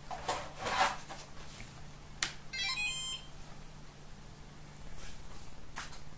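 A short run of electronic beeps, several tones stepping one after another for under a second, about halfway through. A low steady hum underlies it, with a few soft noise bursts in the first two seconds.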